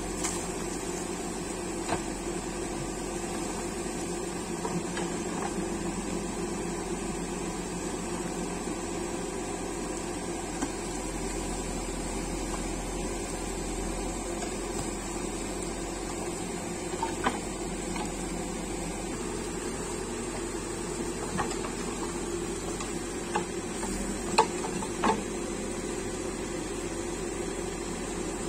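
Backhoe loader's diesel engine running steadily with a constant hum and a high whine, broken by a few sharp knocks, a pair of them near the end.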